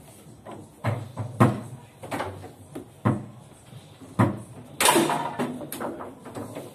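Foosball table in play: sharp clacks and knocks of the hard ball against the plastic players and table walls, and of the steel rods knocking as they are shifted. The knocks come irregularly, a few a second at times, the loudest cluster about five seconds in.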